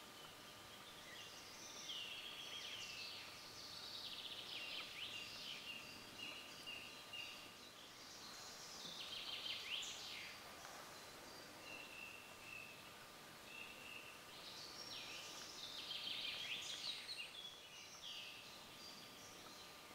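Songbirds singing faintly: fast trilled phrases with short held whistles between them, busiest about halfway through and again near the three-quarter mark.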